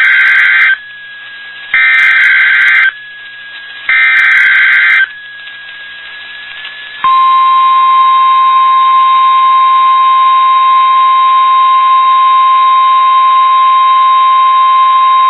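NOAA Weather Radio weekly test signal: three bursts of SAME digital header data, each about a second long, then a steady 1050 Hz warning alarm tone from about seven seconds in.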